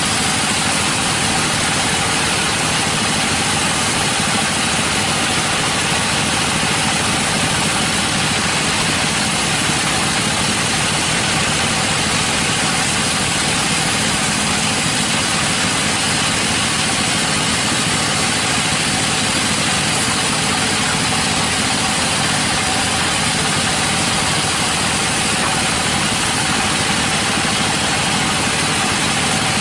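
Sawmill machinery running steadily: an unbroken, even mechanical noise.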